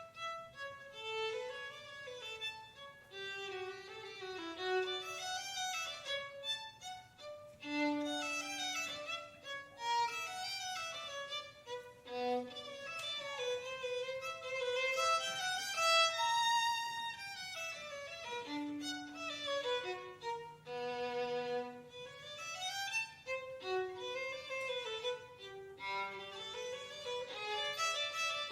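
Violin playing a flowing melody of moving runs and held notes.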